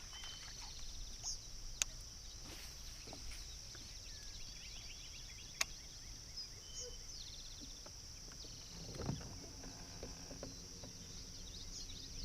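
Early-morning outdoor ambience: steady insect chirring with scattered bird calls, and two sharp clicks about two and five and a half seconds in.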